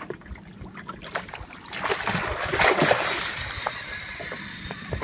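A hooked barracuda thrashing at the surface, a rush of splashing water that builds about two seconds in, is loudest near three seconds and dies away.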